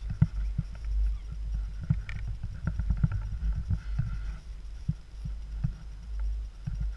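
Skis running over snow: a low rumble with irregular thumps, the sharpest just after the start. Wind buffets the GoPro's microphone.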